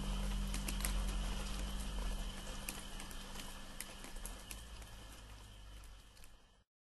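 The song's last low notes holding and slowly fading out under a light hiss, with scattered sharp clicks. The sound cuts off completely near the end.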